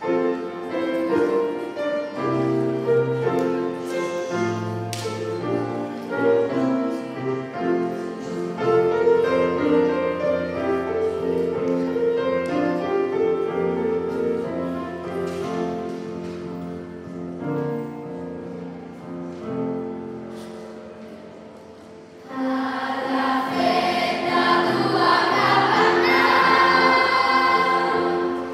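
Children's choir singing with piano accompaniment. The music gradually gets quieter, then about 22 seconds in the choir swells suddenly to a much louder, fuller sound.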